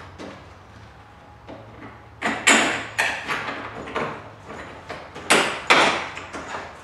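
Bolts and metal top-support brackets clattering and scraping against a golf cart roof as the bolts are pushed through the holes, in a few short bursts about two to three seconds in and again around five seconds in.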